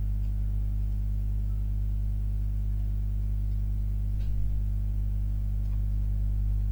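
Steady electrical hum: a constant stack of low, evenly spaced tones that does not change.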